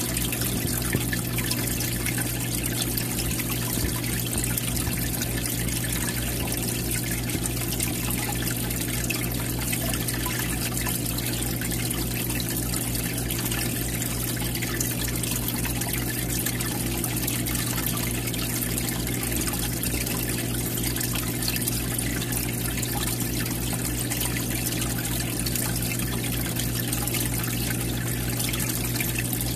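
Aquarium filter water trickling and splashing steadily into the tank at the surface, with a low steady hum underneath.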